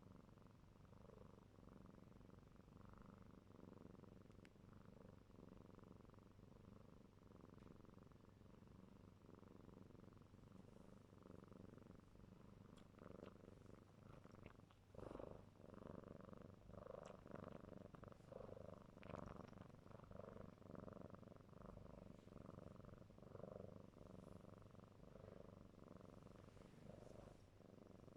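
Faint, steady purring of a four-month-old kitten, with a few soft clicking sounds in the second half as it suckles on an object while kneading.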